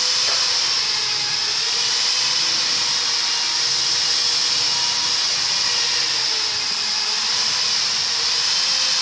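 A steady, loud hiss, strongest in the upper range, with a faint hum beneath it.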